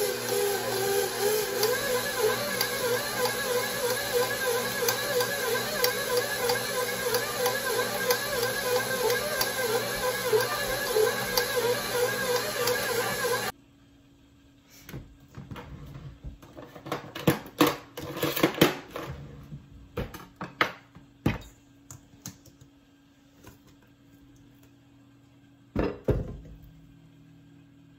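KitchenAid Professional 5 Plus stand mixer running with its dough hook kneading dough: a steady motor hum with a wavering whine and faint regular ticking, which cuts off abruptly about halfway through. Then scattered short knocks and taps of a steel bowl and knife being handled on a wooden cutting board, with a louder double knock near the end.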